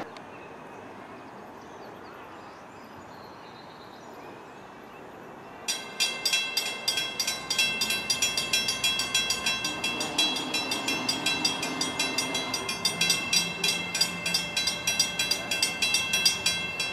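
Railroad grade crossing bell starting up about six seconds in and ringing in rapid, even dings of about five a second, the warning that a train is approaching. Before it, only low steady outdoor noise.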